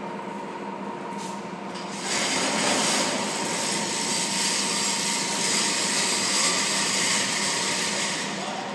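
Industrial machinery running with a steady hum and a thin steady tone. About two seconds in, a loud, even hissing rush starts, as the machine's head moves; it stops shortly before the end.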